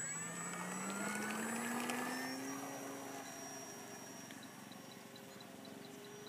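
Parkzone T-28 Trojan RC plane's electric motor and propeller whining on takeoff. The pitch rises over the first few seconds as it speeds up, then the sound fades as the plane climbs away.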